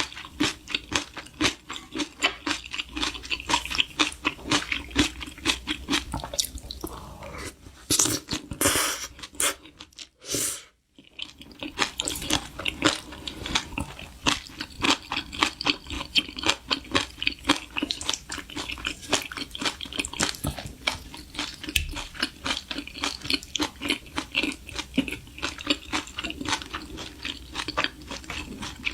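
Close-up crunchy chewing of food: a fast, continuous run of crunches, broken by a short silence about ten seconds in.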